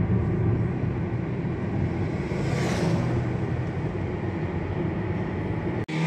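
Steady road and engine noise inside a moving car, a low rumble with a brief hiss that swells and fades about halfway through. It cuts off abruptly near the end.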